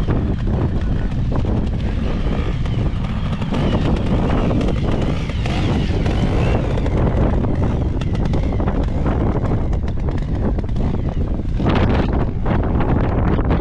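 Strong wind buffeting the microphone, with trials motorcycle engines running in the background.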